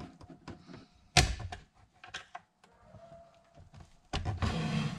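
Plastic clicks and knocks as a small tool pries at the locking tabs of a TIPM fuse-box housing, the sharpest click about a second in. Near the end the plastic case scrapes and rustles as it is worked apart.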